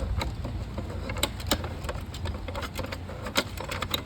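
Scattered light clicks and taps of plastic printer parts being handled around the paper-feed roller, over a steady low hum.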